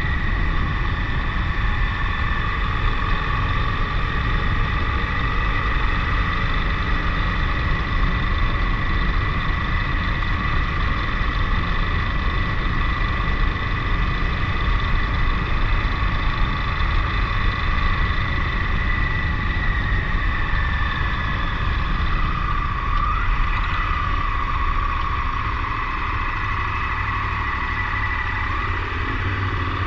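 KTM 1090 Adventure's V-twin engine running at a steady cruise under heavy wind rush. A steady whine holds throughout, wavering briefly a little over two-thirds of the way through.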